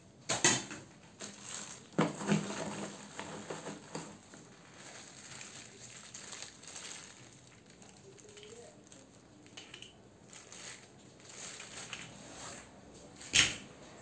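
Plastic wrapping rustling and crinkling while hard plastic parts, castor wheels among them, are handled and knock together. There are sharp knocks about half a second in, at two seconds and, loudest, near the end, with lighter clicks and rustling between.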